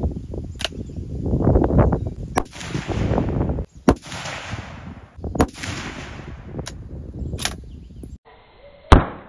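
A 6.5 Creedmoor bolt-action rifle, a Ruger American, fired from a bench rest: three sharp rifle shots, the loudest near the end, with smaller clicks and knocks between them.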